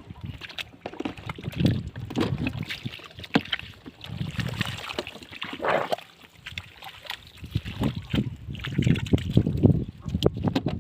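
Water splashing and sloshing in a shallow flooded field as people wade and grope for fish by hand, in irregular bursts with sharp slaps.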